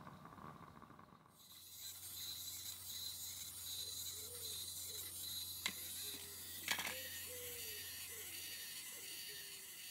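Faint outdoor ambience: a low steady hum and hiss with soft repeated rising-and-falling notes, broken by two sharp clicks about a second apart midway through.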